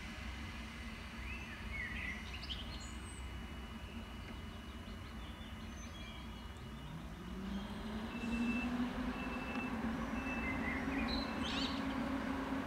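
Intercity passenger train pulling slowly away under electric wires: a low rumble, with a hum that rises in pitch about seven seconds in and then holds steady as the sound grows louder. Birds chirp over it.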